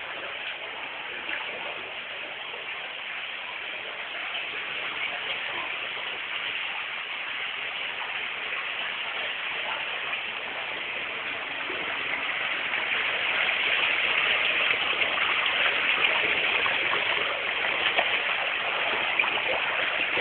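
Steady rush of running water, growing louder about twelve seconds in.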